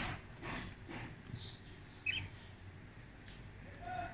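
Young budgerigars chirping faintly in a cage, with soft rustling; one short chirp stands out about two seconds in.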